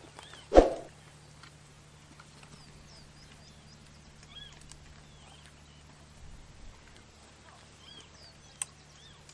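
Scattered short bird chirps over quiet open-air ambience with a steady low hum, broken about half a second in by one sudden loud thump and near the end by a sharp click.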